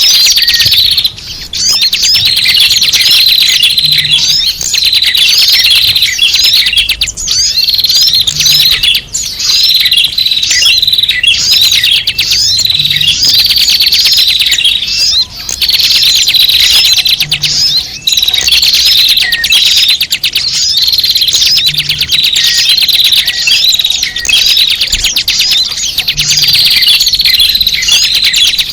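A dense, continuous chattering of many small birds: high-pitched chirps and twitters packed tightly together. It is a bird-lure (pikat) recording that repeats about every four and a half seconds.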